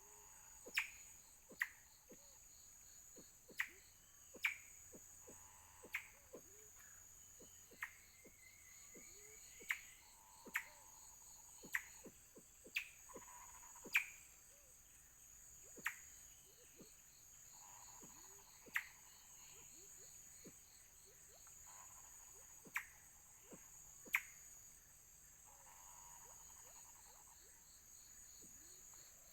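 Tropical forest sound: a steady high insect chorus with a pulsing trill beneath it. Over it come sharp falling animal calls, about one every one to two seconds and the loudest thing, with some short hums and many faint low calls.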